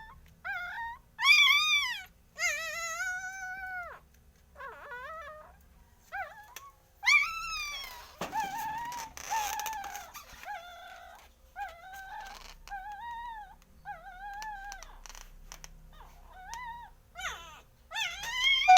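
Hungry young puppies whining and crying, a steady string of short high-pitched cries, each under a second long.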